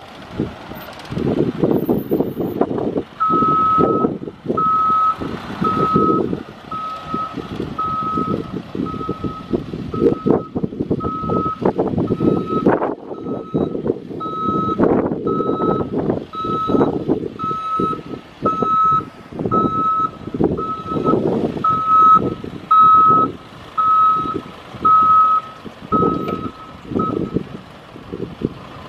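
Box truck's backup alarm beeping in reverse gear: a single high tone repeating a little faster than once a second, starting a few seconds in and stopping near the end. Wind buffets the microphone in gusts underneath.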